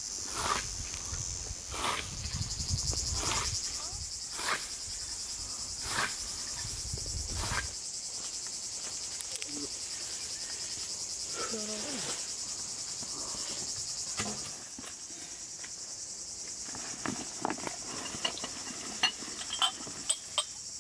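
Steady high chirring of a summer insect chorus. Over the first eight seconds a hand scythe swishes through tall grass in regular strokes, about one every second and a half, and then stops.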